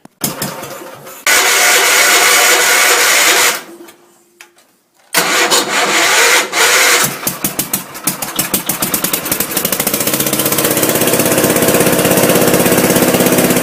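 Rebuilt Kohler K241 single-cylinder engine on a Gravely Commercial 10A being cranked by its electric starter on a weak battery: two cranking attempts with a short pause between, then it catches about seven seconds in, the firing strokes speed up and it settles into steady running. This is its first start after the rebuild.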